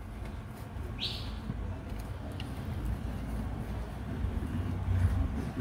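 Dull straight-edge knife blade pressed hard and scraped down a wooden stick. It fails to bite into the wood. A single short high chirp about a second in.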